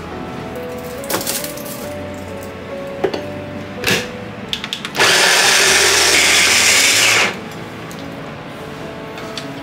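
Electric hand-blender chopper attachment running for about two seconds as it chops chunks of carrot and other vegetables, then stopping abruptly. A few knife knocks on a cutting board come before it.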